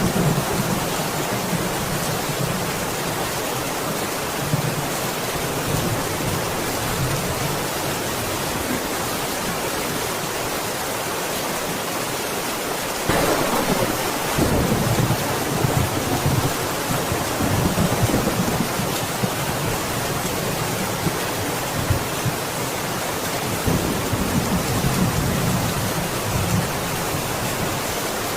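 Steady heavy rain, with rolls of distant thunder rumbling underneath, the strongest starting about halfway through.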